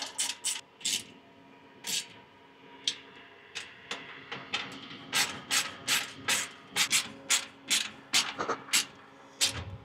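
Socket ratchet wrench clicking as a duct clamp nut on the engine bleed valve is run down by hand. The clicks come a few at a time at first, then settle into a steady run of about two to three a second.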